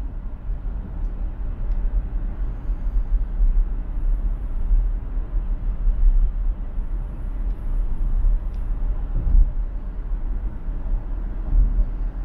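A vehicle driving at highway speed: steady low road rumble with a fainter hiss of tyre and wind noise.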